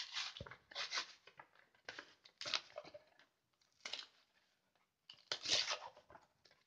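A Pokémon card triple blister pack being torn open by hand: about six short tearing and crinkling bursts of plastic and card with pauses between, the longest near the end.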